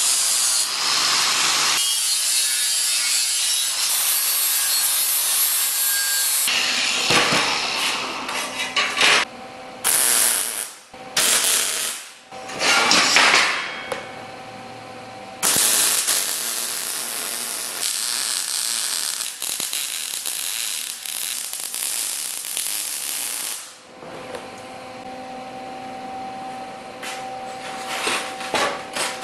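Angle grinder grinding the edge of a plasma-cut steel part: one long steady run, then several short bursts. Then several seconds of steady crackling hiss from MIG welding, followed by a quieter steady hum with light clicks near the end.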